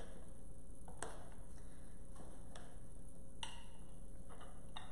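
A few light clicks and taps of a measuring cup and spoon as almond flour is scooped and measured, about one a second, over a low steady background hum.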